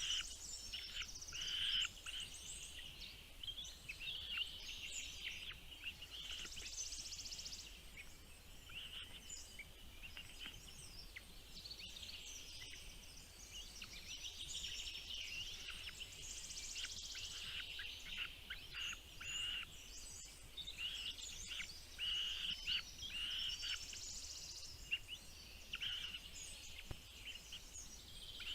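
Small birds chirping: a dense, continuous run of short high chirps and buzzy notes, over a faint steady low hum.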